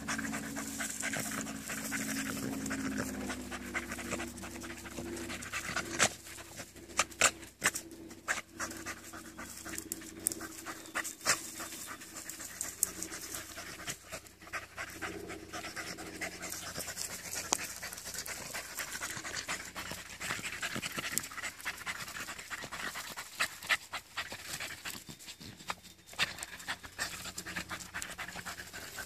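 Beagles panting hard, with many sharp snaps and crackles from about six seconds in.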